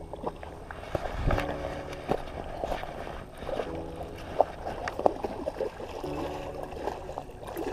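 A hooked chum salmon splashing at the surface close to shore, with clicks and rattles from the baitcasting reel. Background music underneath: a short held chord repeating about every two and a half seconds.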